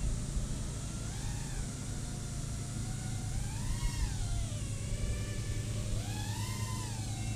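Rotor X Atom 120 micro racing quadcopter in flight: its brushless motors and props whine, the pitch swelling up and falling back about three times as the throttle is worked. A steady low rumble runs underneath.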